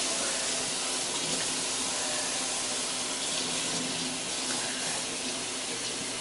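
Kitchen faucet running steadily, water going into the emptied spaghetti-sauce jar to rinse out the last of the sauce.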